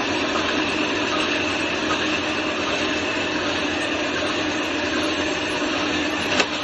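CNC metal spinning machine running: a steady mechanical hum with a hiss, a sharp click near the end.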